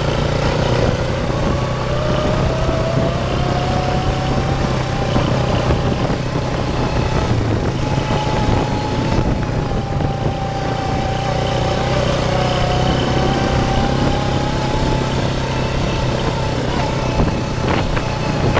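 ATV engine running steadily while driving, with a whine that rises over the first few seconds and then wavers up and down with speed.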